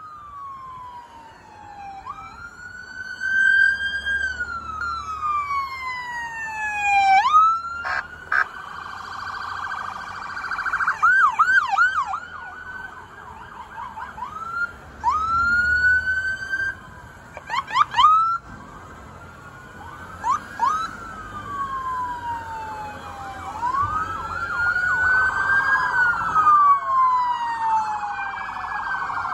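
Police cruiser sirens sounding as the cars pass, each alternating between a slow rising-and-falling wail and short bursts of rapid yelp. Near the end several sirens overlap.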